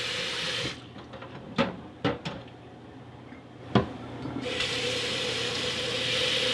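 Kitchen tap running into a stainless steel sink, shut off for a few seconds while a handful of sharp knocks are heard, then running again from about halfway through.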